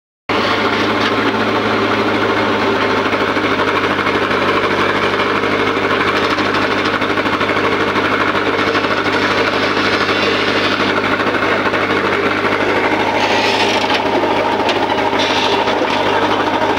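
Tractor diesel engine idling steadily close by while a backhoe loader works alongside. Near the end there are a few short scraping bursts.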